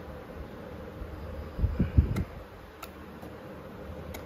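Objects being handled: a few light clicks and a couple of dull knocks about two seconds in, over a steady low hum.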